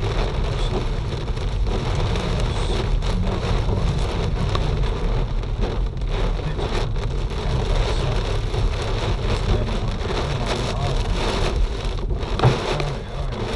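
Hail falling and striking hard surfaces: a dense, steady clatter of many small impacts over a low rumble, with one louder hit near the end.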